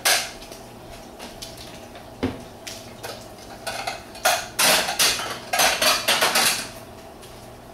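Tabletop clatter and rustle while a burger is eaten: short, sharp clicks of tableware and handling of the foil wrapping, one just after the start, one a little after two seconds in and a dense run from about four to six and a half seconds in, over a faint steady hum.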